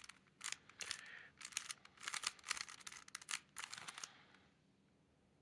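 Plastic Rubik's Cube layers being turned quickly through a setup move and a T-perm algorithm: a fast run of clicking and clacking turns that stops about four seconds in.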